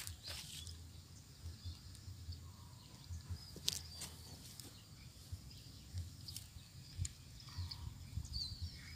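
Quiet outdoor ambience: a low, uneven wind rumble on the microphone with a few faint clicks, and faint bird chirps near the end.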